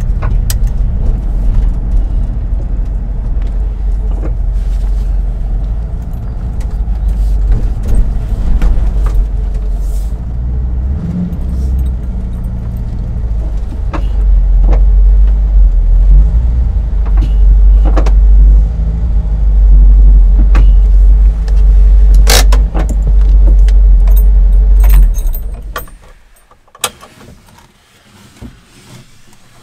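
VW T3 Syncro van's engine running, heard from inside the cab as a deep, steady drone with scattered clicks and knocks, louder in the second half. About 26 seconds in the engine is switched off, leaving only a few small clicks.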